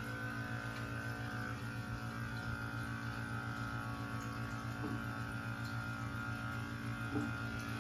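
Steady electric hum of a small pump running, with a fast even buzz and a few fixed tones.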